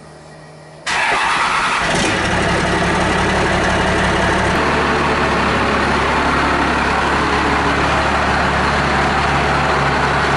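1997 Dodge Ram 2500's 5.9 L 12-valve Cummins inline-six diesel fires up about a second in and settles into a steady idle. This is the truck running on its first start after the fuel sump install.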